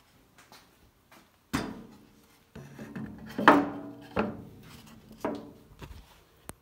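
A homemade wooden bandsaw fence and its bar clamp being handled on the saw's metal table. About six separate knocks, each with a short ringing tail, come with light rubbing between them; the loudest knock is about three and a half seconds in.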